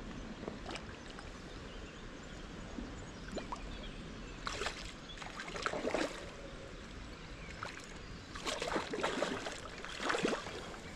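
A hooked trout thrashing and splashing at the surface as it is played in on a fly rod, in short bursts about halfway through and again near the end.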